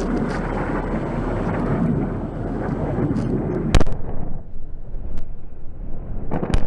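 Deep, thunder-like rumble of a fighter jet passing overhead, with a single sharp crack about four seconds in, after which the rumble eases off.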